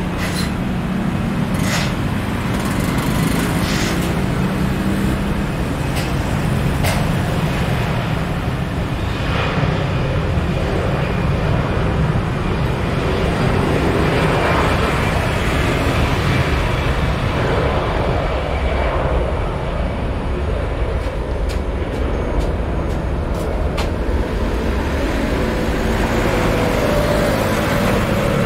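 Jet airliner's engines running as it moves along the runway: a steady, loud low rumble, with a rising tone coming in near the end.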